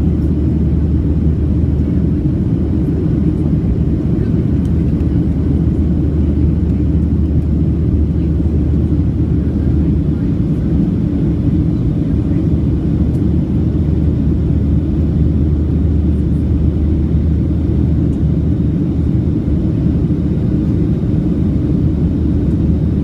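Steady low rumble of a Boeing 737-700's CFM56-7B turbofan engines and airflow, heard from inside the passenger cabin, holding an even level throughout.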